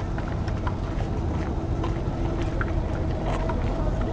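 Outdoor crowd bustle of a procession on foot: a steady low rumble with scattered short clicks and knocks.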